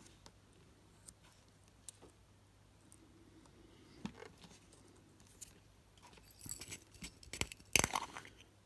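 Small metal tools and parts clicking and rattling as they are handled on a workbench. A few faint ticks at first, then a busy run of sharp clicks over the last few seconds, the loudest near the end.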